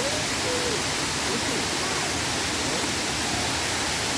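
A waterfall rushing: a steady, unbroken wash of falling water.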